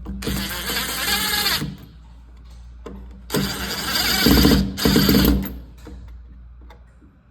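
Cordless drill-driver running in three short bursts, driving the mounting screws that fasten a light switch into its wall box.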